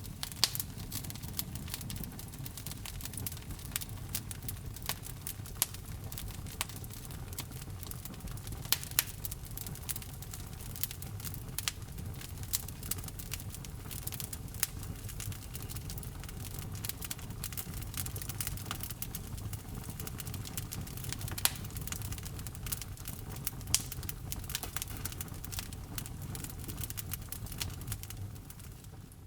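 Wood fire burning in a fireplace, crackling with many small pops and a few louder snaps over a low steady rumble of the flames.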